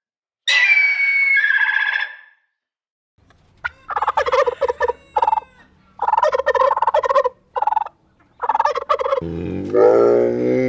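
Poultry calling: one pitched call, then a quick choppy run of calls lasting several seconds. A deep animal call with a rising pitch starts near the end.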